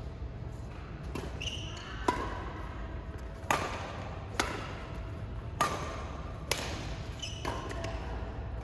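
Badminton rally: rackets striking a shuttlecock, about five sharp smacks roughly a second apart, with a few short squeaks in between.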